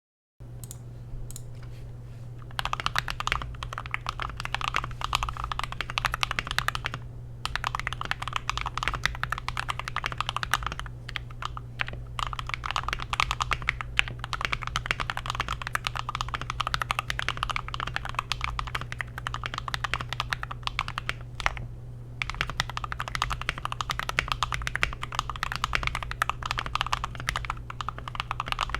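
Typing on a GMMK Pro mechanical keyboard with an FR4 plate and C3 Tangerine linear switches: a continuous run of keystrokes with a few short pauses, over a steady low hum.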